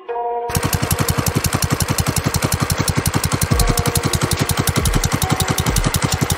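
Predator 212 Hemi single-cylinder four-stroke engine on a mini bike idling: a fast, even putter of exhaust pulses that starts about half a second in and holds steady.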